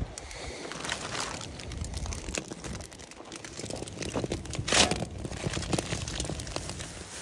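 Aluminium foil packet crinkling and crunching as it is handled and laid on a campfire's metal grill grate, in a run of irregular crackles with a louder crinkle about two-thirds of the way through.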